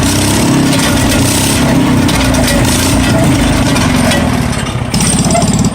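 Ford 14-71 hay baler running under its 17 hp Wisconsin engine: a steady engine note with the baler's working mechanism, dipping briefly in level about four and a half seconds in.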